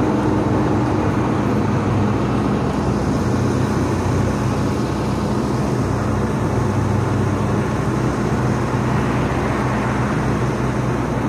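Steady low engine hum of a parked fire engine idling, over a constant haze of road noise.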